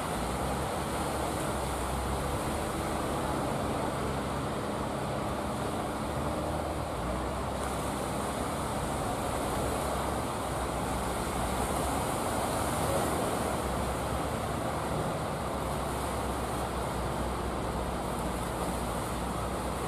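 Fishing boat engine running with a steady drone, mixed with the wash of surf breaking on the shore.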